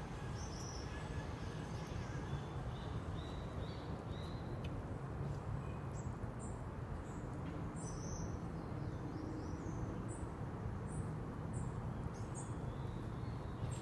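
Forest ambience: a steady low background rumble with short, high chirps scattered through it, more of them in the second half.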